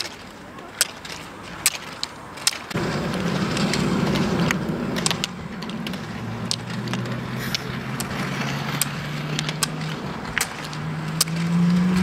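Roller skis rolling on asphalt with the regular clack of ski-pole tips planting on the tarmac, under a second apart. About three seconds in the rolling noise gets louder, and a steady low hum joins it, stepping up in pitch near the end.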